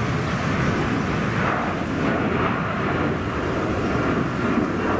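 Boeing 757-200's twin jet engines at climb thrust just after takeoff, a steady rumble with a hissing edge as the airliner climbs away.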